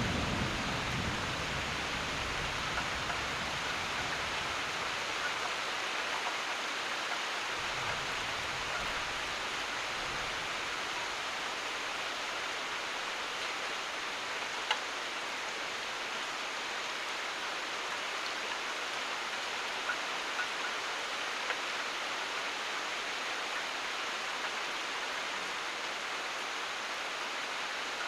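Steady, even rain, with the low rumble of thunder dying away over the first couple of seconds and a few louder single drops ticking now and then.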